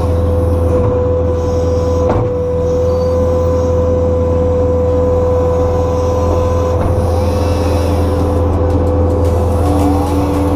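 New Holland skid steer's engine running steadily under the machine's work, with a constant whine over it; a second, lower whine joins near the end.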